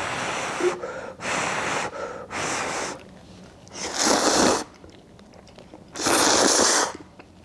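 A person blowing on a chopstick-load of hot instant ramen noodles in short puffs, then slurping the noodles up in two long, loud slurps about four and six seconds in.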